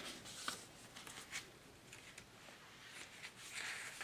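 Faint rustling of book pages being handled, with a few soft clicks and a longer page-turning rustle near the end.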